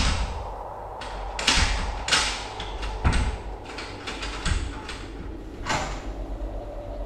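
A door knocking and rattling: a loud knock right at the start, then about five more at uneven gaps, over a steady low hum.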